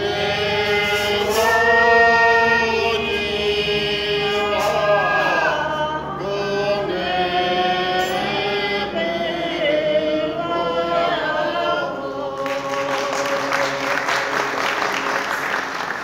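Unaccompanied singing of a Sherpa folk song in long held, wavering notes with slow pitch glides. About three-quarters of the way through, audience applause breaks out while the last note is still held.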